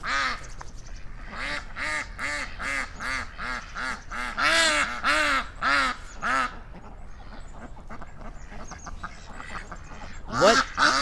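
A group of ducks quacking over and over, a run of loud quacks about two a second, then fainter, quicker calls, with loud quacking starting up again near the end.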